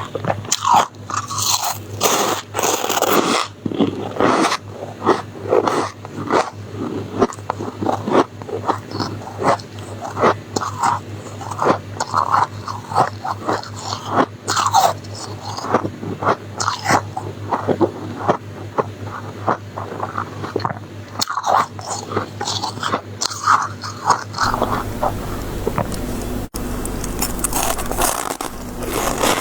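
Close-miked biting and chewing of soft, frosty white freezer ice, a quick run of irregular crunches. Near the end the crunching gives way to a steadier scraping rustle.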